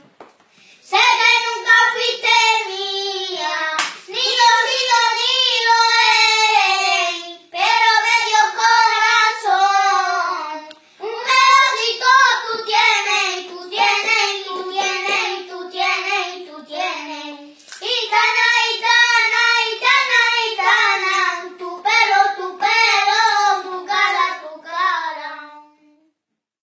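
Young boys singing unaccompanied in a flamenco style, in long drawn-out phrases whose pitch bends and wavers, with short breaks between phrases. The singing stops just before the end.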